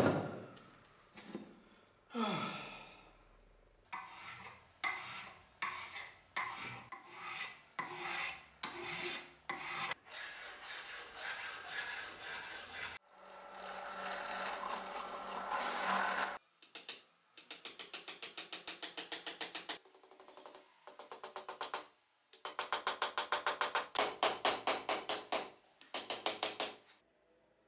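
A rasp worked over a wooden axe handle in rough strokes, about one a second, later fast and rhythmic. Partway through, a bench drill press bores into the handle for a few seconds.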